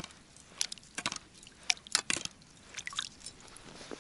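Ice skimmer pushing and scraping wet groundbait across the ice. It makes a string of short, irregular wet squishes and scrapes.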